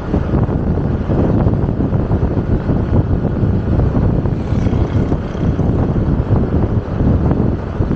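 Wind buffeting the microphone over the rumble of a moving vehicle on the road, loud and steady.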